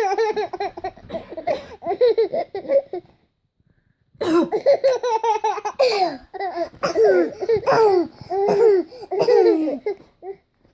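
Seven-month-old baby laughing hard in long runs of rapid, high-pitched giggles, set off by fake sneezes. The laughter breaks off for about a second a few seconds in, then starts again and goes on in a second long bout.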